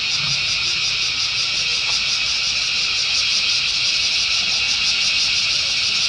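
Cicadas droning: a loud, steady, high-pitched buzzing chorus.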